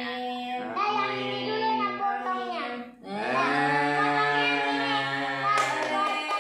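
A family singing a birthday song together, children's and adults' voices on long held notes, with a short break about three seconds in. Hand clapping joins near the end.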